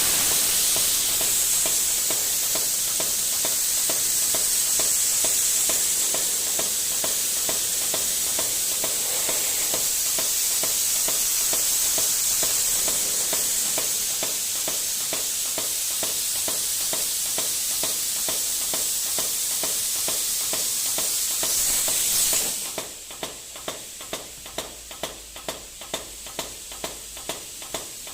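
Compressed-air mist nozzle of a minimum quantity lubrication (MQL) system spraying, a steady hiss with a faint regular pulsing. About 22 seconds in the hiss cuts off, and a regular ticking of about two to three a second goes on.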